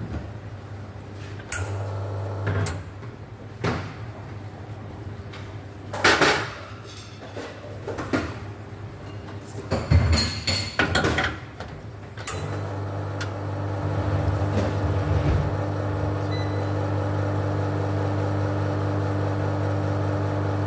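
Knocks and clatter of items being handled behind a café counter, then about twelve seconds in a steady low machine hum starts and keeps going.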